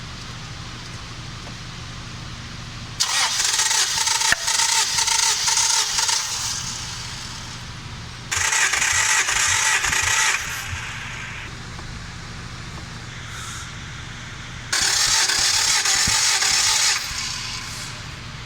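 An engine idling steadily, with three loud bursts of hissing that each start and stop abruptly and last about two seconds: about three, eight and fifteen seconds in.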